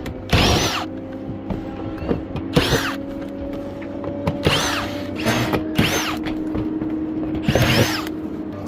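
Power drill run in about six short bursts, each whirring up in pitch and back down, over a steady low hum.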